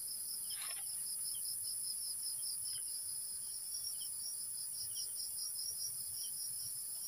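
Crickets chirping in a steady, even run of short high pulses, about four a second, over a constant high-pitched insect drone.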